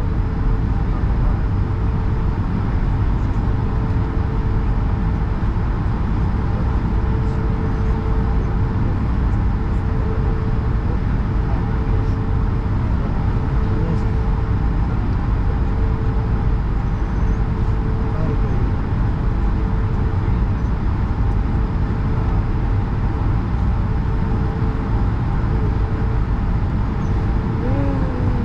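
Cabin noise inside an Airbus A220 taxiing, its Pratt & Whitney PW1500G geared turbofan engines running at low taxi power. A steady low rumble with a constant hum over it, with no rise in power.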